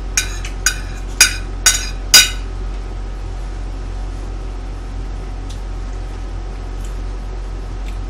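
A metal spoon clinks against a ceramic plate five times, about half a second apart, the last the loudest. Then only a steady electrical hum remains.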